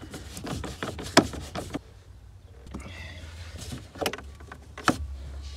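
Plastic lower dashboard trim of a Corsa E being unscrewed and pulled loose by hand: a run of clicks and knocks, the sharpest about a second in and a few more near the end, over a low steady hum.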